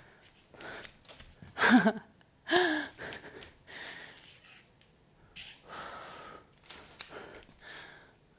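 A woman breathing hard through repeated ape jumps: sharp exhales and gasps, with two short voiced grunts about two and three seconds in, and soft thuds as her hands and bare feet land on a wood floor.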